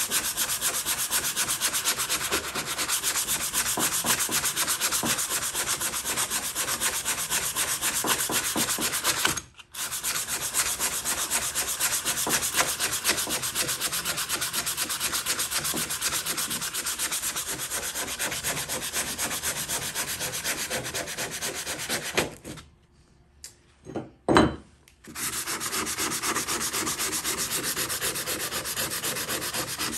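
Sandpaper rubbed by hand in fast, steady strokes during a hatchet restoration. It breaks off briefly about ten seconds in and again for a couple of seconds past twenty seconds, with a single knock in that second break.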